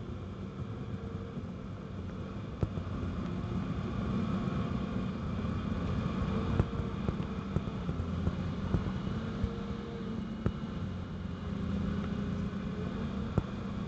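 Cat 330CL excavator's diesel engine running steadily under working load, with a higher whine that comes and goes and several sharp clanks scattered through.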